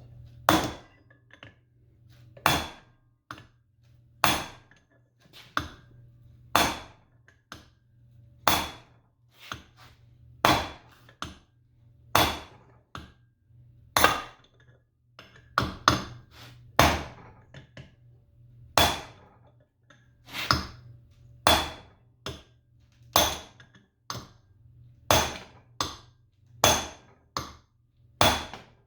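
Hammer striking metal over and over, about one blow a second, sometimes two in quick succession, each blow ringing briefly. The blows are knocking a stuck part out of a variable-speed gearbox.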